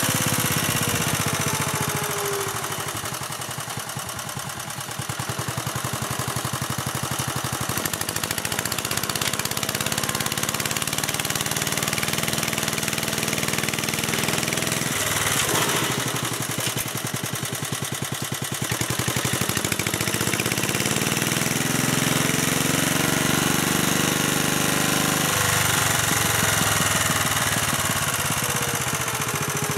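1957 Staub PP3B walking tractor running with its rotary tiller working the soil; the engine speed rises and falls several times as it works and is steered.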